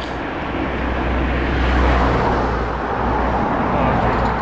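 Car traffic passing close by on a road: engine and tyre noise over a low rumble, swelling to its loudest about two seconds in and again near the end.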